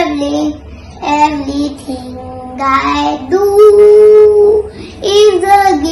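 A young girl singing solo in short phrases, holding one long steady note about three and a half seconds in.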